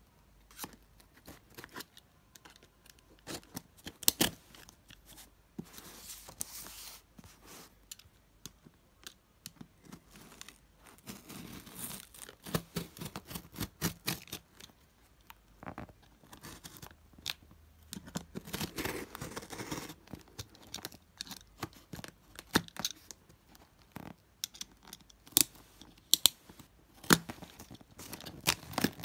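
Snap-off utility knife slitting packing tape and cardboard on a parcel, with paper and tape being peeled and torn away: irregular scraping rasps and sharp clicks.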